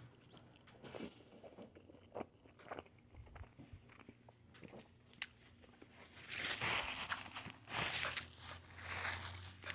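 A person chewing and crunching food close to the microphone: faint small clicks and mouth sounds at first, then louder crunchy chewing in three bouts from about six seconds in.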